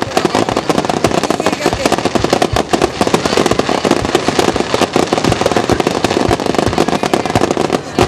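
Fireworks display: a dense, unbroken stream of sharp pops and crackles from crackling-star shells bursting, many reports a second.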